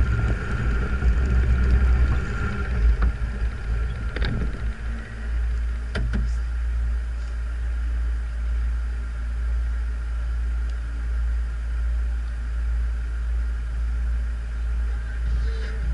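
Off-road 4x4 engine rumbling at low speed with wind buffeting the microphone for about five seconds, then settling into a steady idle for the rest.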